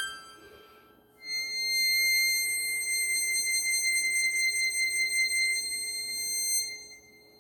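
Seydel Symphony chromatic harmonica holding one long, high final note. The note comes in about a second in after the previous phrase dies away, stays steady for over five seconds, and fades out near the end.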